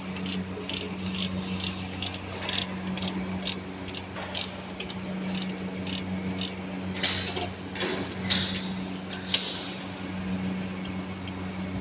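Ratchet wrench clicking in rapid runs, with a few metal clinks, as the rocker arm adjusting nuts on a Caterpillar 3116 diesel's head are set for valve and injector lash. A steady low hum runs underneath.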